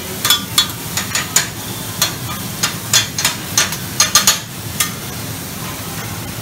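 Metal spatulas clacking and scraping on a Mongolian barbecue flat-top griddle, irregular sharp clacks several times a second at times, over the steady sizzle of chicken and vegetables frying.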